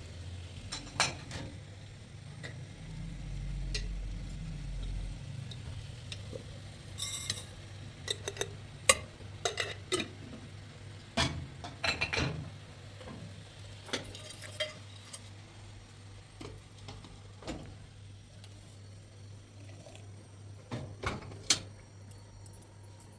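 Dishes and utensils clinking and knocking irregularly as they are handled, over a low steady hum.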